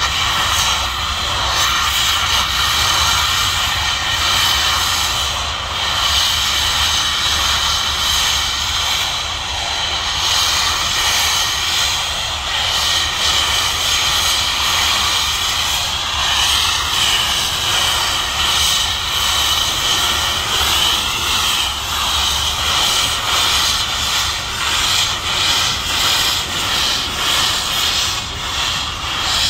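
Steady rush of wind and road noise from a moving car pacing a running steam locomotive, with small wavers in pitch about halfway through.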